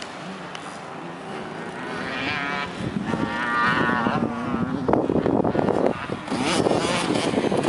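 Dirt bike engines on a motocross track, among them a KTM 50's small two-stroke single, revving up and down as the bikes ride. The pitch rises and falls in waves about three to four seconds in, and the sound gets louder and rougher from about five seconds in.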